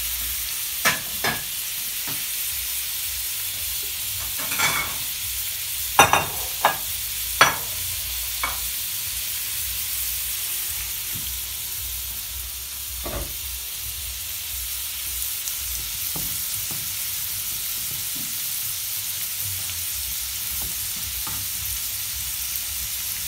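Food sizzling steadily in hot frying pans. About eight sharp clinks and knocks of plates and utensils come in the first third, and one more about halfway.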